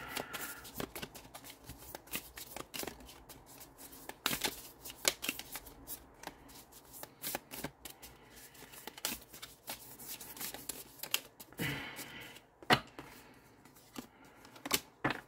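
A tarot deck being shuffled by hand over hand, the cards flicking and slapping against each other in quick, irregular strokes.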